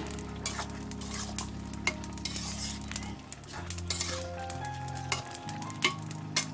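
Metal spoon stirring and scraping in an aluminium pan of vegetables steaming in water, with scattered clinks against the pan. Soft background music with held notes runs underneath.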